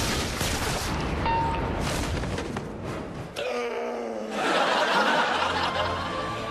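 Drama soundtrack of music and sound effects; about halfway a man gives a loud gasp for breath as he comes back from the dead.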